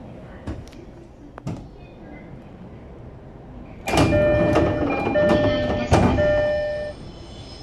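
Door chime of an E231 series 1000 commuter train sounding while the sliding doors move: clear chime tones repeat about three times over roughly three seconds, starting about four seconds in. On this train set the chime differs from the standard one.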